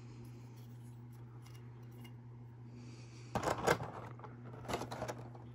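Handling noise from circuit boards being swapped and turned over in the hands: a short cluster of clicks and rustles about three seconds in, and a second, shorter one near the end, over a steady low hum.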